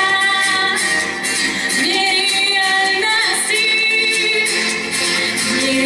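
A woman singing a pop song live into a handheld microphone over a backing track with a steady beat, holding long notes.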